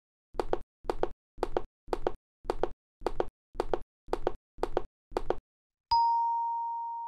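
Intro sound effects: ten short, clicky knocks in an even rhythm of about two a second, then a single bright ding near the end that rings on as one clear tone, slowly fading.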